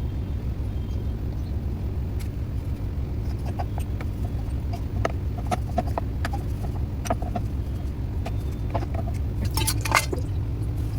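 A steady low rumble with scattered light clicks and clinks of kitchen utensils.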